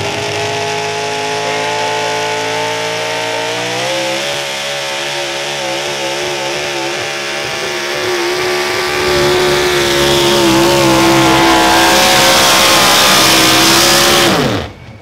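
A modified four-wheel-drive pulling truck's engine running flat out through a hook: the pitch climbs, wavers for a few seconds, then holds at its loudest. Near the end the pitch and level fall away steeply as the driver lifts off at the end of the pull.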